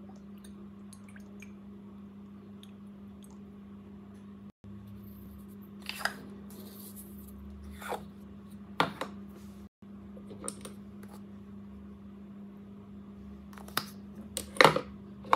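Sliced raw potatoes being seasoned in a stainless-steel bowl: olive oil drizzled over them, then salt, pepper and ground spices shaken on. This is heard as a few short, sharp shaking and tapping sounds, the loudest near the end, over a steady low hum.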